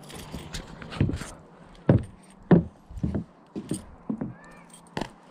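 Boot footsteps on wooden deck boards and steps, about two heavy steps a second, with a ring of keys jangling and clicking in hand.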